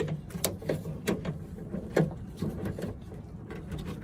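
Scattered light clicks and knocks, about one every half second and irregularly spaced, from hand work on a car's trunk latch assembly, over a steady low hum.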